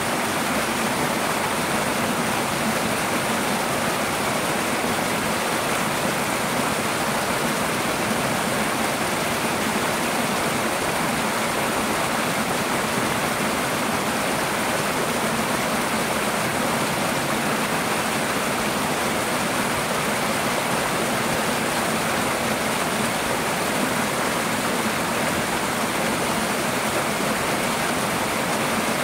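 Twin small waterfalls pouring side by side over rocks into a shallow pool: a steady rush and splash of falling water.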